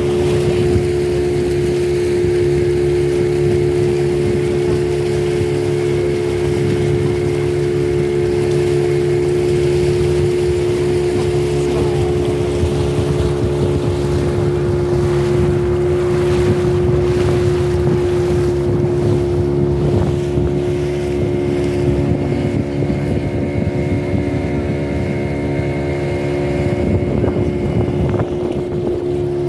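Motor boat's engine running steadily at one even pitch while cruising, with wind on the microphone.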